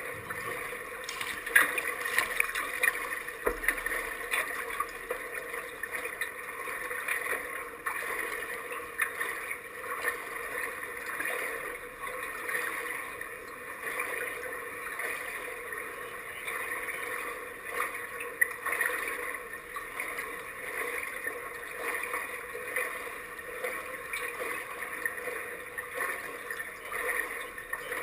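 Pool water lapping and sloshing around kayaks at the surface, over a steady background hum, with brief small splashes now and then, the loudest about a second and a half in.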